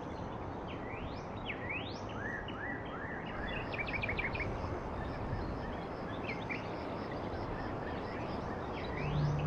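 Birds calling over a steady background hiss: quick rising whistled sweeps near the start and again near the end, and a run of short repeated notes in between.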